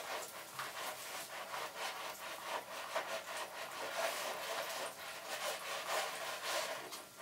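Dry ice bubbling in a steel pot of hot water: an uneven fizzing hiss full of small crackling pops as the ice sublimates into fog.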